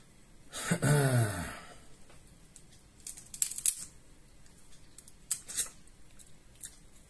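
Cooked king crab shell crackling and clicking in sharp little crunches as leg pieces are broken and the meat is picked out by hand, in a cluster about three seconds in and again past five seconds. Near the start, a short falling voiced grunt from the eater is the loudest sound.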